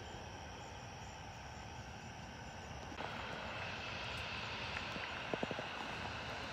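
Steady rumble and hiss of distant jet aircraft engines across the airfield, a little louder after a cut about three seconds in, with a few faint clicks near the end.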